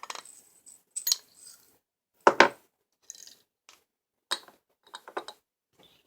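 Small metal screws and diecast parts handled on a hard work surface: a handful of separate light clicks and clinks, the loudest a little over two seconds in.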